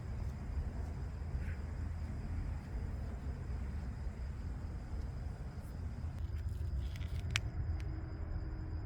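Steady low outdoor rumble, with one sharp click a little over seven seconds in.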